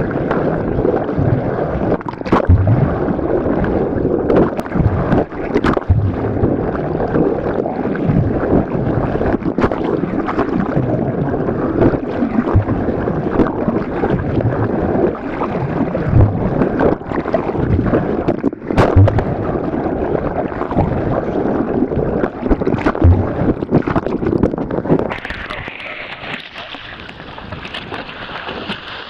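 Water rushing and churning past a camera held underwater alongside a moving boat's bow, with scattered sharp clicks. About 25 s in, the camera comes out of the water and the sound turns to wind on the microphone.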